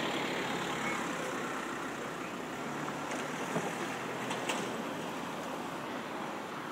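A road vehicle's engine hum fading away over the first couple of seconds, over a steady traffic-like rushing noise.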